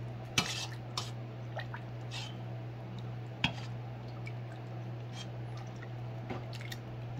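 Metal ladle stirring and scooping thick dal in an enamel pot, with soft liquid sloshing and sharp clinks of the ladle against the pot, one near the start and another about three and a half seconds in. A steady low hum runs underneath.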